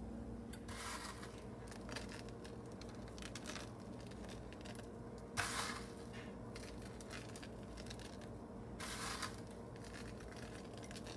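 Three brief crinkling, rustling noises from handling as toasted coconut is sprinkled over a meringue-topped pie, the middle one loudest, over a faint steady hum.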